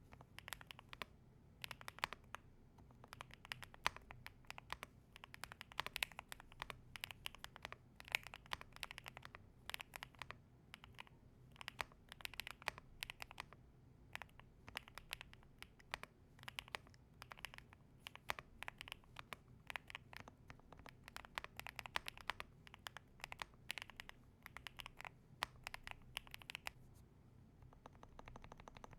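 Typing on a Zuoya GMK67 mechanical keyboard with Sillyworks Hyacinth V2U switches and PBT cherry-profile keycaps, tape-modded PCB and Holee-modded stabilizers: a quick, uneven run of key clacks that stops shortly before the end.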